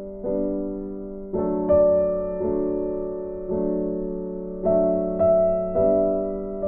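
Background piano music: slow, soft chords, each struck about once a second and left to fade.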